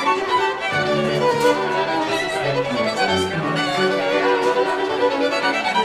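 Background music led by violin over a string accompaniment, with low notes that move about once a second.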